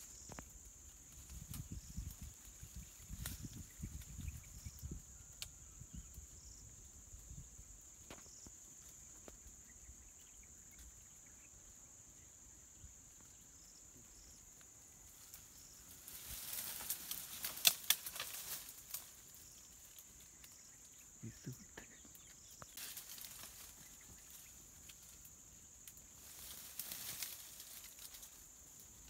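Steady high-pitched insect drone in dry scrub forest, with rustling and crackling of dry leaves and twigs that grows loudest a little past halfway and comes back twice near the end.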